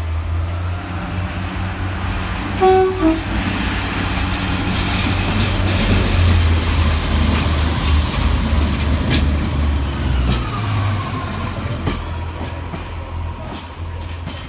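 Northern Pacer diesel multiple unit running through the platform, its underfloor diesel engine giving a steady low drone. About three seconds in it sounds a short two-note horn, a warning tone to track workers beside the line. Wheels click over rail joints later on as the drone fades near the end.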